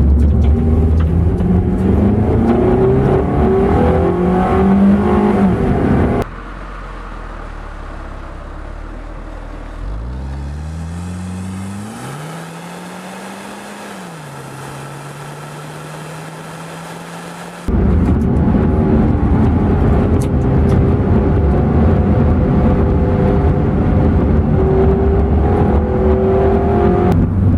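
Car engine and road noise heard while driving, the engine note rising as the car speeds up. For roughly ten seconds in the middle the sound is quieter: an engine note climbs, rises and falls once, then holds steady before the louder running noise returns.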